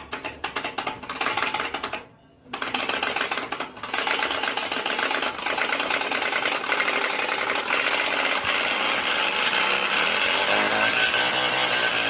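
Rapid mechanical clattering. A fast run of clicks stops briefly about two seconds in, then resumes as a dense, continuous clatter.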